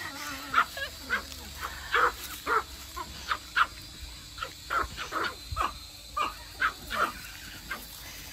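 Small dogs yapping in short, high barks, two or three a second, in an uneven run.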